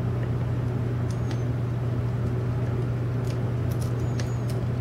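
A steady low hum, with a few faint, light clicks scattered through it as a hook pick works the pins of a Sargent pin-tumbler cylinder under tension.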